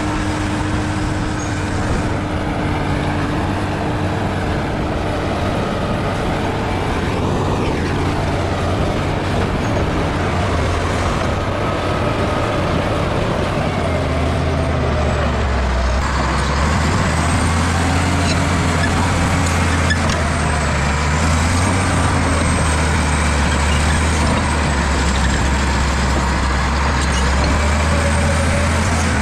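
Bulldozer's diesel engine running hard under load, its note dropping lower and growing stronger about halfway through.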